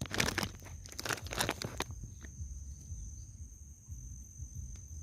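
Irregular crinkling clicks for about the first two seconds, then quieter. A steady high insect drone runs underneath.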